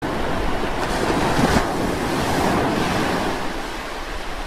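A rush of noise like breaking ocean surf, swelling about a second and a half in and tapering off near the end.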